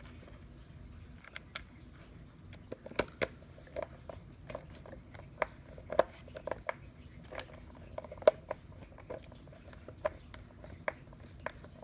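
Handle screws being driven in with a screwdriver to fasten the handle of a Hoover carpet washer: a string of irregular sharp clicks and ticks, one or two a second.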